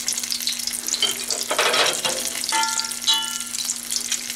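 Bisquick-battered banana chunks deep-frying in oil held at about 350°F, golden and done: a steady crackling sizzle of bubbling oil. There is a brief louder rush about halfway, and two short metallic clinks near the end.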